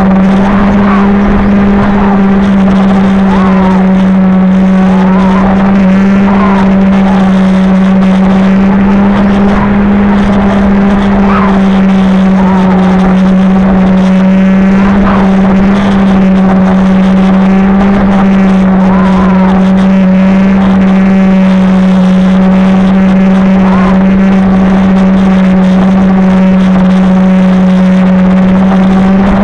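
RC airplane's electric motor and propeller running at a steady speed: a loud, even drone, picked up close by the camera on board the plane.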